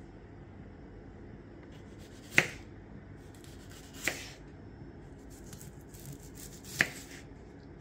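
Kitchen knife slicing an onion: three sharp knocks as the blade cuts through, a second or two apart, with faint handling sounds between.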